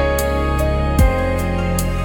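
Calm new-age background music: sustained pad and bass notes with a light ticking beat, the chord changing about a second in.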